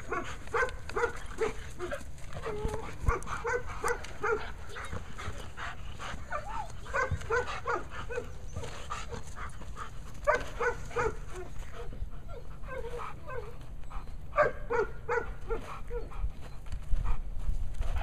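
German Shepherd barking hard and repeatedly at a decoy holding a bite sleeve during protection work, in quick runs of barks broken by short pauses.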